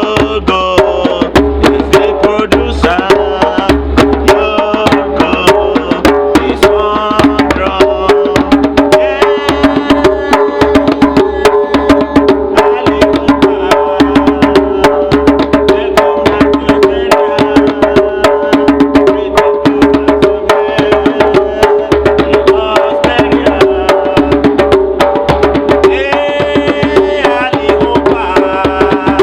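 Group hand drumming, djembe among the drums: a fast, dense, unbroken rhythm of strokes with sustained pitched notes ringing underneath.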